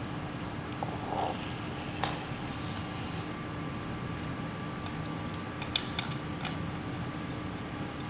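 Handling sounds: a short rustling scrape with a sharp click as the metal drink can is lifted off the induction coil's pad. Then several light clicks and rattles as the battery cells and their wires are picked up, over a steady low hum.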